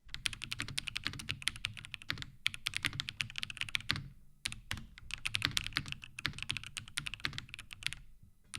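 Fast typing on the ROG Strix Morph 96 Wireless mechanical keyboard: a dense run of key clacks with short pauses about two, four and eight seconds in. This is a sound test of the keyboard's bottom silicone damping layer.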